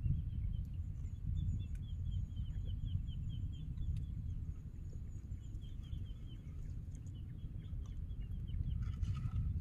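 Low rumble of wind on the microphone over open water. A bird calls in the background twice, each time in a quick series of short high chirps.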